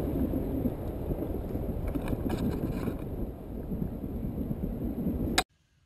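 Wind noise from rushing air in paragliding flight buffeting the camera's microphone, a steady low rumble that cuts off abruptly about five and a half seconds in.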